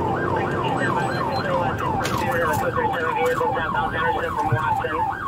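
Police car siren on yelp, a rapid up-and-down sweep about four times a second, heard from inside the pursuing patrol car over engine and road noise.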